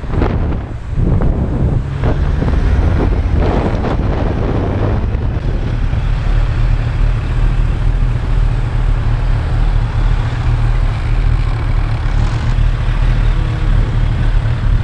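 Steady wind rush and rumble on a helmet camera's microphone from a sportbike being ridden through traffic, with the engine and road noise underneath and a brief dip near the start.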